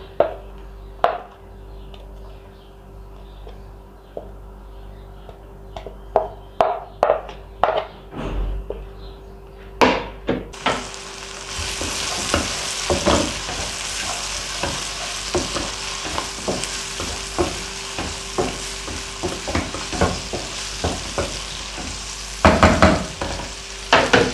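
Chopped onions frying in hot oil in a pan: a few knocks and taps at first, then about ten seconds in a steady sizzle starts, with a wooden spatula knocking and scraping against the pan as the onions are stirred.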